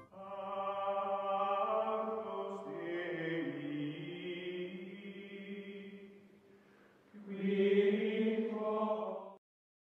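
Outro music of sustained, chant-like choral chords that fade away about six seconds in, then a second louder chord swell that cuts off abruptly near the end.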